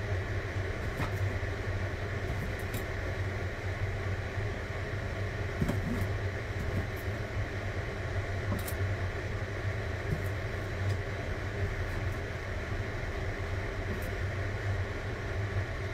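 Steady low mechanical hum, with a few light, irregularly spaced taps of a kitchen knife on a plastic cutting board as sausages are sliced.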